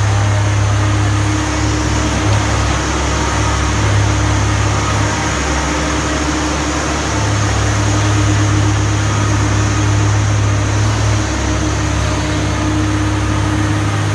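Komatsu PC300LC excavator's diesel engine running steadily with a deep hum and a faint higher tone over it. The hum eases twice, about five seconds in and again near the end, as the load on the hydraulics changes.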